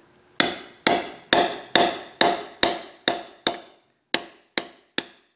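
A hammer repeatedly strikes a steel rod, about two metallic blows a second with a short pause partway through. The rod is being driven into a grease-packed pilot bore in a small-block Chevy crankshaft, so the grease pressure forces the worn pilot bushing out.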